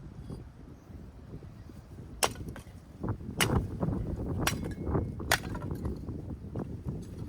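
Four sharp knocks or cracks spread over a few seconds, over a low rumble of wind.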